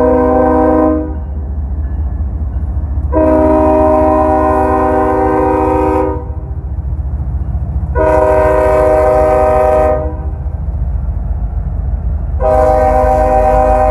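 Ferromex diesel locomotive's multi-tone air horn sounding a series of long blasts for a grade crossing: one ending about a second in, a blast of about three seconds, another of about two seconds, and a fourth starting near the end. A steady low rumble of the locomotive and rolling train runs underneath.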